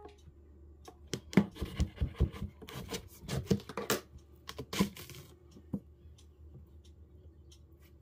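A whole watermelon being cut and pulled apart by hand: a run of scratchy cracks and knocks as the rind and flesh give way, over about four seconds, then fading to a few faint ticks.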